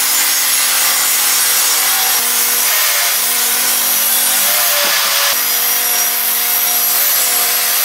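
Bosch table saw running and ripping through a wide softwood panel: a steady, loud blade-and-motor noise as the wood is fed, with a brief break about five seconds in.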